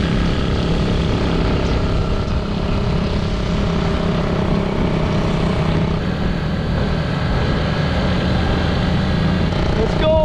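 Motorcycle engine running steadily, an even drone with no change in pitch.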